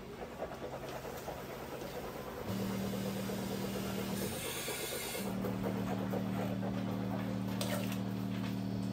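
Water swished around in a man's mouth and spat into a sink, a gentle rinse kept in the mouth without gargling, with a short hissing spit about four and a half seconds in. Under it is a low steady hum that cuts out and comes back twice.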